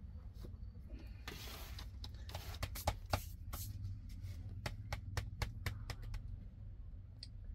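Flour being sifted through a round-framed drum sieve: a brief shushing of falling flour, then a quick run of sharp taps and knocks as the sieve is shaken and rapped, over a steady low rumble.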